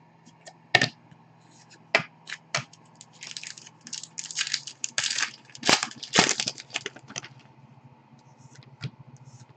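Trading card pack wrapper crinkling and cards handled by hand: a few sharp card clicks in the first three seconds, then two longer spells of crinkling from about three to seven seconds in. A faint low hum runs underneath.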